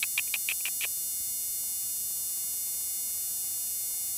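A steady, high-pitched electronic whine from the old recording, with many thin overtones. In the first second it carries a quick run of about six short, high chirps, and one more comes at the very end.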